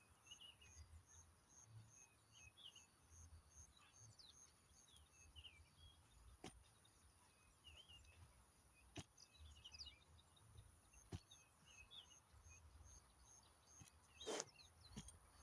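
Faint outdoor ambience of small birds chirping on and off, over a steady high-pitched hum and a low rumble. A few sharp knocks sound through it, the loudest near the end.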